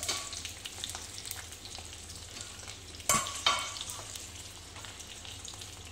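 Potato-stuffed green chillies sizzling as they fry in hot oil in a kadhai, with two sharp knocks about three seconds in.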